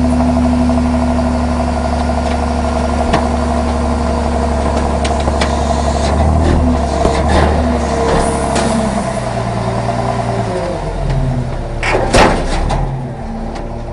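Garbage truck engine running with its compactor working: the engine speed steps up and down as the packer cycles, with scattered metal knocks and one loud bang about twelve seconds in, after which the engine settles lower.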